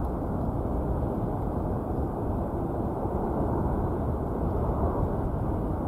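Single-engine amphibious floatplane flying past on approach: a steady engine and propeller drone with no change in pitch, mixed with wind rumble on the microphone.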